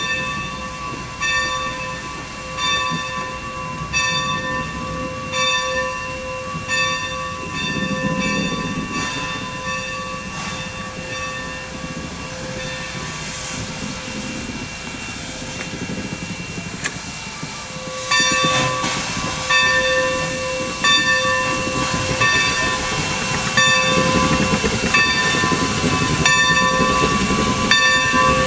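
2-8-2 Mikado steam locomotive No. 45 moving slowly, its bell ringing steadily with a stroke about every second and a half, over hissing steam and soft exhaust chuffs. Everything grows louder about two-thirds of the way through as the engine comes alongside.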